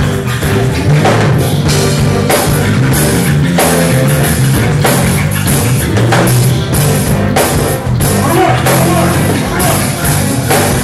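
Loud music with a steady, heavy drum beat over a sustained bass line.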